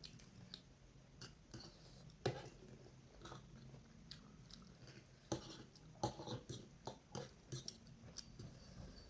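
Close-up eating sounds: a person chewing and biting food, with scattered wet mouth clicks and smacks, the sharpest about two seconds in and again after five seconds.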